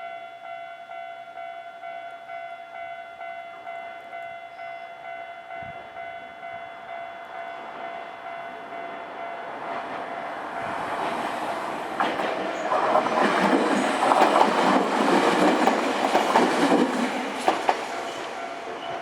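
Japanese level-crossing warning bell ringing in a steady repeating chime. From about ten seconds in, a Nankai Kada Line train approaches and passes over the crossing, its wheels clacking over the rail joints, loudest a few seconds later and then fading while the bell keeps ringing.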